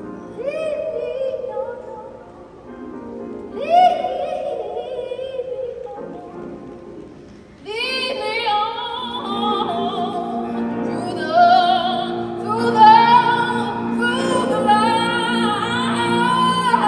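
A woman singing solo with an orchestra, long held notes with a wide vibrato, each phrase starting with an upward swoop. About eight seconds in, the accompaniment fills out and the singing grows louder.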